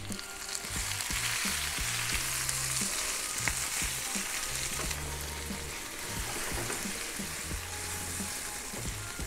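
Sliced onions sizzling in butter in a wok, with a spatula scraping and ticking against the pan as they are stirred.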